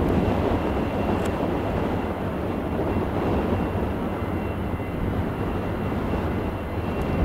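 A-4N Skyhawk's J52 turbojet engine running: a steady rushing jet noise with faint high whining tones.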